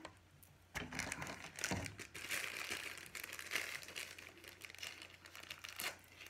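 Crinkling of a small plastic packet being handled and pulled open by hand, with a few sharper crackles about one and two seconds in and near the end.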